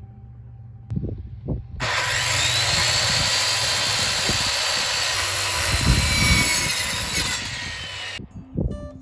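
Corded circular saw spinning up and cutting across the top of a wooden 4x6 post, running steadily for about six seconds and then cutting off suddenly. Two knocks come just before it starts and a thump follows it.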